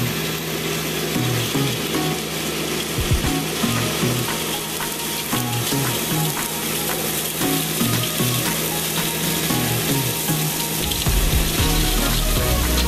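Background music with a changing bass line.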